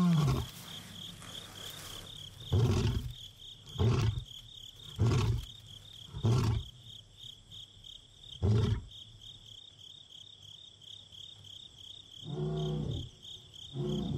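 Male lion's roaring bout: a long moaning roar falls away at the start, then a run of five short deep grunts a second or so apart that slow toward the middle, and two more calls near the end. It is a contact roar, a lion calling to find a companion. A steady pulsing chorus of night insects runs underneath.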